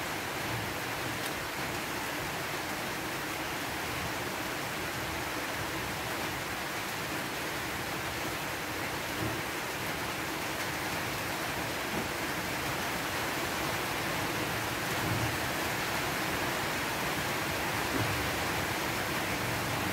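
Heavy rain falling, a steady even hiss with no breaks.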